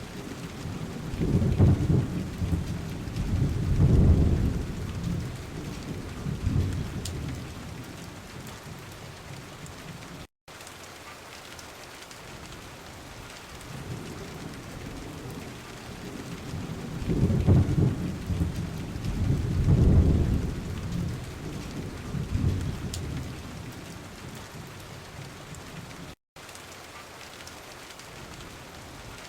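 Steady rain with two rolls of low thunder, each swelling and fading over several seconds. Twice the sound cuts out for an instant, as at the seam of a looped recording.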